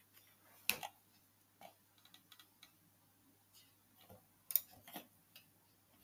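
Faint, scattered clicks of a computer mouse and its scroll wheel, a few single ticks spread out, with a small cluster of sharper clicks around four to five seconds in.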